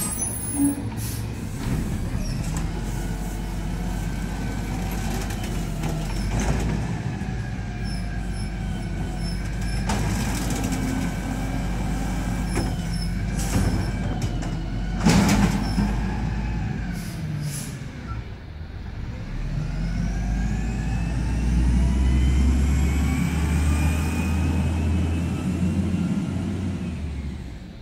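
Peterbilt 320 refuse truck's engine running as the truck moves off, with a few short hisses, the loudest about fifteen seconds in. Near the end the engine pitch rises as it accelerates.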